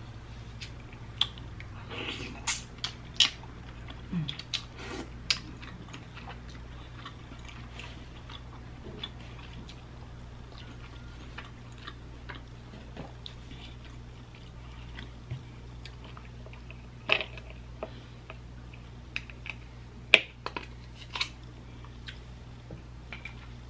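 Close-miked eating sounds from a seafood boil: wet chewing with sharp lip smacks and clicks at irregular moments, over a steady low hum.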